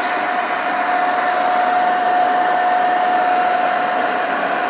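Electric inflatable bounce house blower running at full speed: a loud, steady rush of air with one steady motor whine. The motor is working.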